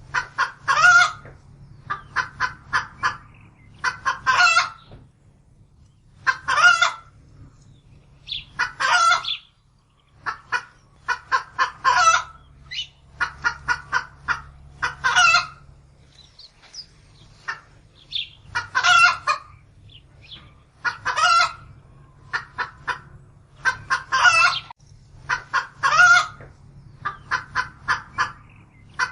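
A domestic hen's alarm cackle: runs of quick short clucks, each ending in a longer drawn-out squawk, repeated about eleven times every two to three seconds.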